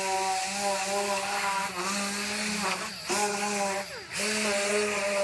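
Pneumatic die grinder with a yellow abrasive disc running at speed on welded sheet-metal seams, a steady high whine. Twice near the end the pitch sags under load and it briefly cuts out before running up again.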